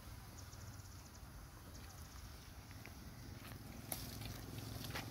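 Faint forest ambience: short trills of rapid high insect chirps, with a few sharp clicks near the end.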